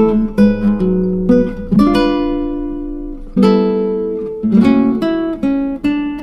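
Background music: acoustic guitar picking notes and chords, with longer ringing chords held a couple of times.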